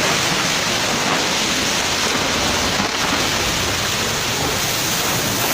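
Loud, steady rush of fast-flowing floodwater, with no separate splashes or knocks.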